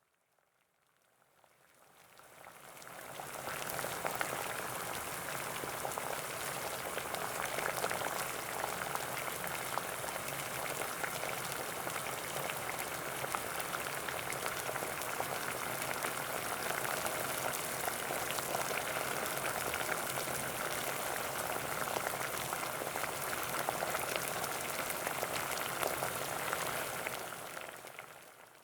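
Water at a rolling boil, a dense steady bubbling and popping. It fades in over the first few seconds and fades out near the end.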